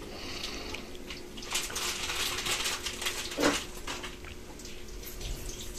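Oil sizzling steadily in a wok as kikiam fries over a lowered gas flame, with the crinkle of a plastic bag as frozen fishballs are pulled apart. A brief, louder pitched sound comes about three and a half seconds in.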